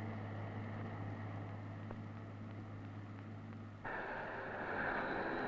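Low steady machine hum under a faint hiss; about four seconds in it cuts abruptly to a louder, rushing sound of winery crushing machinery running.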